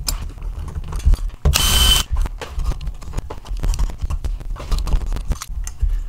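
Black plastic pocket door pull being pushed and worked into its cutout in the door, with repeated clicks, knocks and scraping over a low rumble of handling. About a second and a half in comes a brief hiss with a whine, about half a second long.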